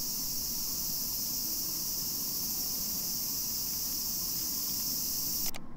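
Steady, high-pitched chorus of cicadas singing in the trees; it cuts off abruptly near the end.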